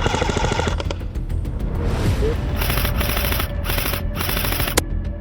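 Airsoft guns firing rapid full-auto bursts: one burst in the first second, then several more from about halfway through, with background music underneath.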